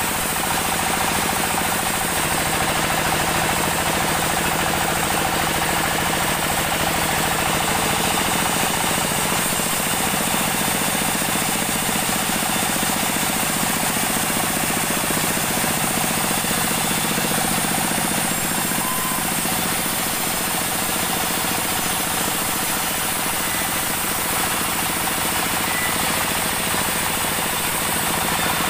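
Band sawmill running steadily, its blade cutting lengthwise through a large acacia log.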